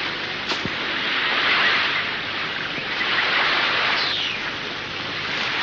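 Rushing surf on a beach, a steady noise that swells and eases.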